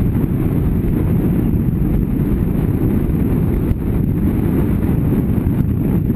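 Airflow of paragliding flight buffeting the camera's microphone: a loud, steady, deep rumble of wind noise.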